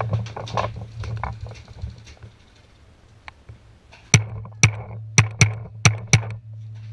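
Six sharp paintball shots cracking in quick succession, about half a second apart, with a steady low hum underneath. Before them there are only a few faint clicks.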